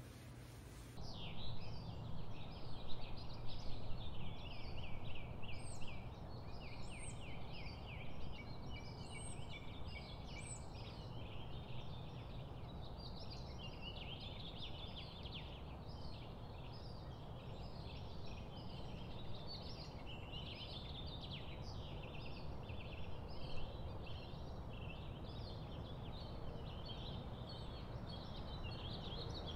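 Many small birds chirping and singing at once, a dense chorus of short high calls that starts abruptly about a second in, over a steady low hum.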